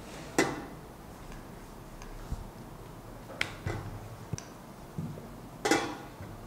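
A wooden rolling pin rolls and knocks against dough on a round stone rolling board, giving scattered knocks and clicks. The two loudest strokes come just after the start and near the end.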